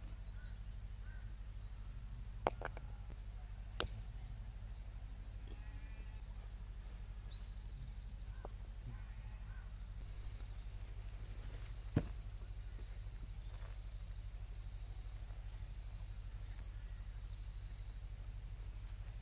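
Flat stones clacking against each other a few times as they are set down in a ring on grass, the sharpest knock about two-thirds of the way through. Under it runs a steady high insect drone.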